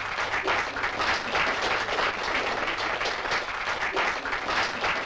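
An audience applauding steadily, dying away near the end, over a low steady hum.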